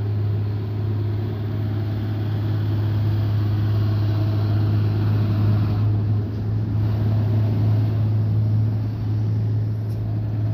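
Diesel trucks passing close by: a steady low engine drone throughout, with road and engine noise swelling as they go past, loudest in the middle.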